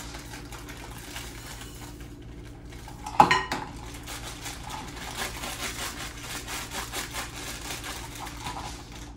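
A utensil stirring and scraping cookie dough in a glass mixing bowl, with many small clinks against the bowl and one sharp, loud clink about three seconds in.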